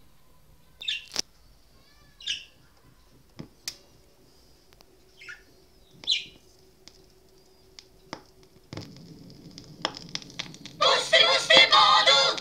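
Tone arm of an Iskraphon 1003 portable record player, with a crystal cartridge, handled with a few sharp clicks, then the stylus lowered onto the spinning LP. Surface noise and crackle come in about nine seconds in, and the record's music starts through the player's small mono amplifier and speaker near the end. A few short high chirps sound in the first half.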